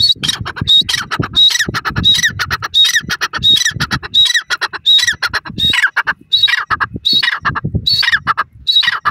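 Grey francolin calling: a loud, rapid run of high, shrill phrases repeated about one and a half times a second, each a sharp high note followed by sweeping slurs.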